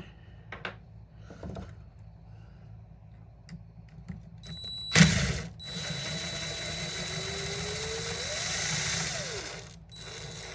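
Tool work on the chainsaw's Allen screws: a few light clicks, a sharp knock about halfway through, then about four seconds of steady mechanical whirring with a thin high whine, stopping near the end.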